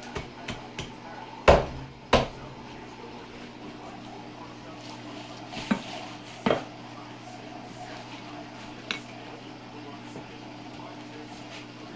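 Meat cleaver chopping into a pig's head on a cutting board: a few light knocks, then two heavy blows about a second and a half and two seconds in, two more about six seconds in, and a lighter one near nine seconds. A steady low hum underneath.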